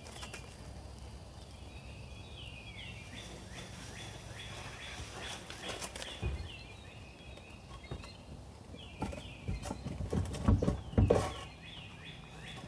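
Wooden boards knocking and bumping as they are set on concrete blocks under a boat hull, with a few loud thumps about ten seconds in. A bird calls repeatedly in short, falling chirps.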